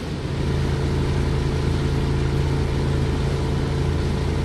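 Steady, even engine hum of an idling vehicle: the engine sound effect of the animated rescue train standing still with its legs down.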